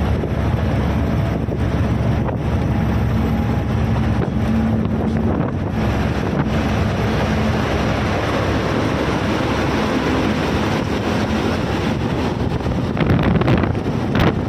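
Truck running, with steady engine and road noise and wind buffeting the microphone.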